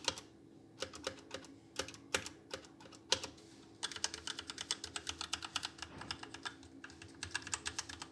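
Zero mechanical keyboard with red switches, unlubricated, being typed on for a sound test. A few separate key presses come first, then fast continuous typing from about four seconds in, pausing briefly near the end.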